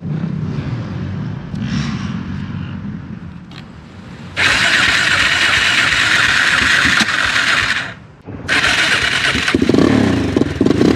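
Motorcycle engine running, with a loud rushing hiss that cuts in about four seconds in, breaks off suddenly near eight seconds and returns, then the engine revving up and down near the end.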